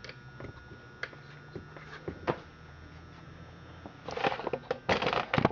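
Handling noise: a few light clicks, then a burst of rustling and scraping from about four seconds in.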